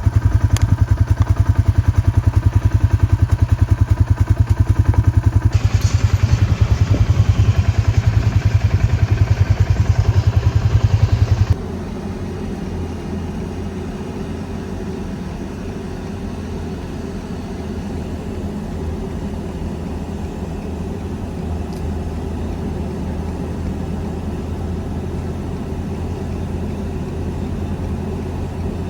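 Vehicle engine running with a loud, fast, even pulsing; about eleven seconds in it cuts off abruptly to a quieter, steady engine drone.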